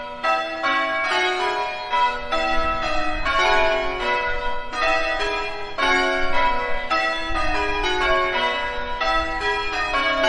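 Church bells ringing a peal: several bells struck one after another, about three strikes a second, each note ringing on under the next.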